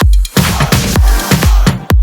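Electronic dance-pop music without vocals, driven by a heavy, steady kick drum at about two beats a second.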